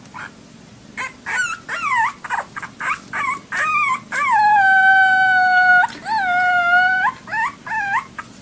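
Small puppy howling. First comes a run of short, high yelping cries that slide in pitch, then two long held howls starting about four and six seconds in, then a few short cries near the end.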